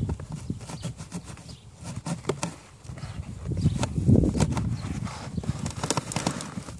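Pickup cabin air filter being slid out of its plastic housing: an irregular run of clicks, knocks and scraping as the filter frame rubs the housing, with rumbling handling noise close to the microphone, heaviest about four seconds in.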